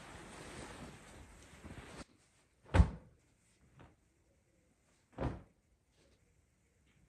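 Clothes on wooden hangers being pushed along a wardrobe rail, a rustling scrape that stops abruptly about two seconds in. Then two short, dull thuds a couple of seconds apart.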